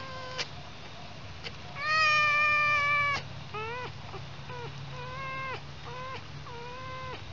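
Young fox whining: one long, high, mewing call, then a string of shorter whines that drop in pitch at their ends.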